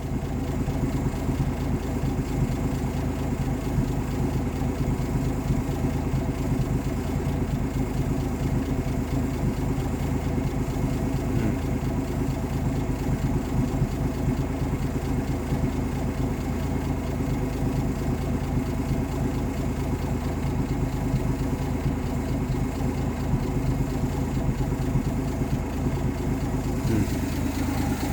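1958 AMC Rambler Super's engine idling steadily on a Weber carburettor, with no misfire now that a new distributor cap is fitted, during idle-mixture tuning.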